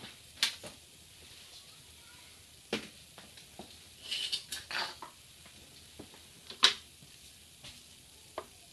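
Hand tools and small metal parts being handled: scattered light clicks and clinks with a few short scraping rustles, the sharpest about two thirds of the way through.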